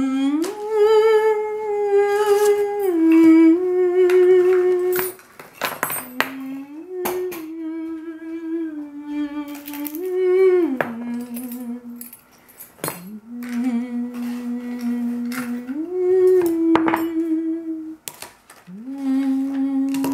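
A person humming a slow tune, holding each note and stepping up and down between pitches, with short breaks between phrases. Scattered clinks and knocks of household things being handled during cleaning.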